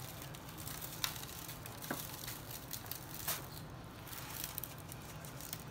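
Gloved hand patting seasoning rub onto a raw brisket in a disposable aluminium foil pan: soft, faint squishes of meat with a few light crinkles and taps of the foil pan, over a low steady hum.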